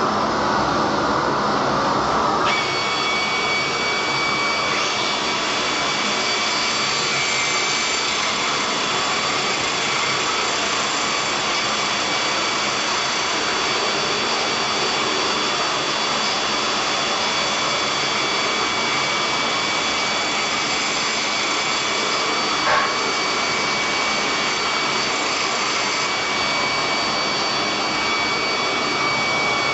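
Angle grinder running at a steady speed on a bronze part held in a vise: a constant high whine that starts about two seconds in, over a steady rushing noise. One brief knock comes about three quarters of the way through.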